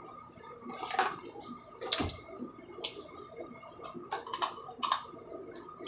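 Steamed blue crab shells being cracked and picked apart by hand: irregular sharp clicks and snaps, roughly one a second.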